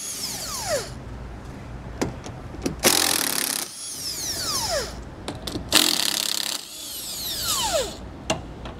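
Milwaukee cordless impact wrench with an 18 mm socket running in two short bursts as it takes off the leaf-spring hanger and equalizer nuts. Each burst ends in a falling whine as the motor spins down, and a few light metallic clicks come between them.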